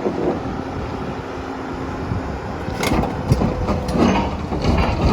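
Komatsu PC240LC-10 hydraulic excavator running, a steady engine hum with a faint whine. A few sharp knocks come about three seconds in and again near four.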